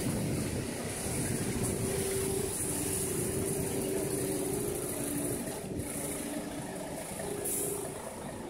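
City street ambience with motor traffic running, including a steady engine-like hum that comes and goes.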